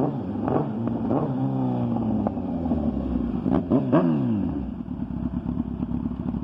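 2008 Kawasaki ZX-10R's inline-four through an M4 full exhaust being revved in a few throttle blips, the pitch climbing and falling each time, with a couple of sharp pops at the top of the biggest rev about four seconds in. It then settles to a steady idle.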